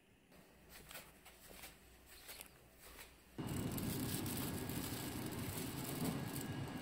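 Faint clicks and rustles of handling. About three and a half seconds in, a steady rushing room noise starts suddenly and holds evenly.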